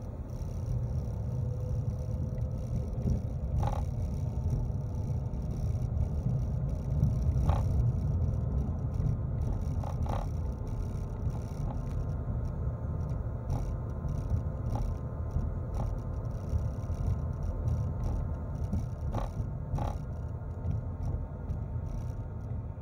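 Car engine and road rumble heard from inside the cabin as the car pulls away from a stop and drives slowly, with a few light clicks scattered through.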